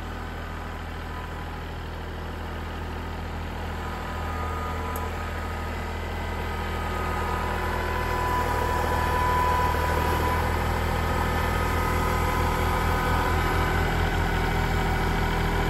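Kubota L3901 compact tractor's three-cylinder diesel engine running steadily while the front loader pushes into and lifts a pile of wood chips. The engine grows louder over the first several seconds and then holds, with a faint high whine about halfway through.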